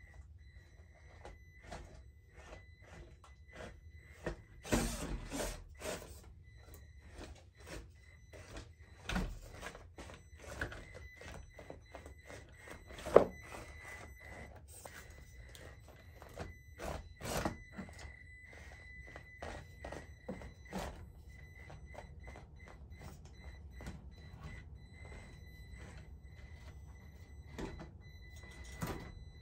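Mini RC scale crawler driving over an indoor crawler course: a faint high motor whine that comes and goes with the throttle, and scattered clicks and knocks of tires and body against the obstacles. There is a cluster of knocks about five seconds in and one sharp, louder knock a little under halfway through.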